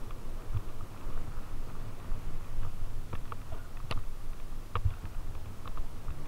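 Fat bike rolling along a leaf-strewn dirt trail: a steady, uneven low rumble from the ride, with a few sharp clicks near the middle.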